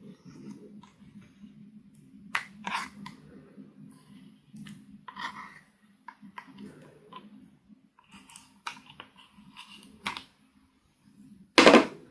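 Small plastic spatula scraping and clicking against pressed glitter eyeshadow in a plastic palette, in short strokes. Near the end there are two loud sharp knocks, the loudest sounds here.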